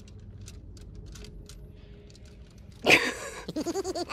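A Samoyed lets out a short breathy huff about three seconds in, then a wavering whine-like grumble that rises and falls in pitch, the 'talking' sound of a Samoyed. Before it there are only a few faint clicks.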